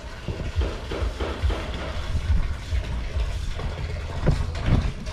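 Water from a garden hose pouring and splashing into a swimming pool, with irregular low rumbling thumps.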